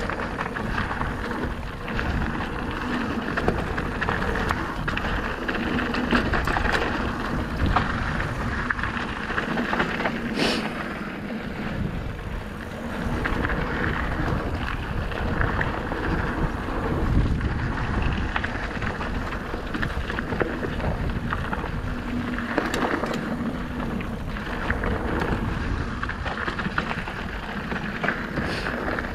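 Electric mountain bike (Merida eOne-Sixty) descending a dirt singletrack: the tyres roll over packed dirt and loose stones with a steady rushing noise, and the bike rattles and clatters over bumps, with one sharp clack about ten seconds in.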